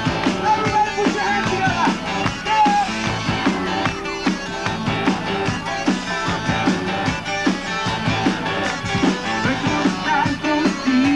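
Rock music from a band, with drums and electric guitar.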